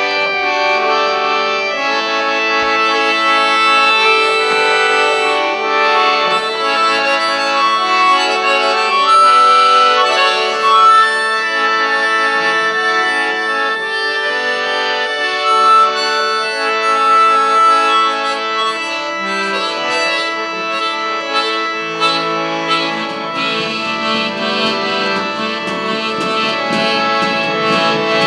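Instrumental music: sustained chords with a melody moving above them.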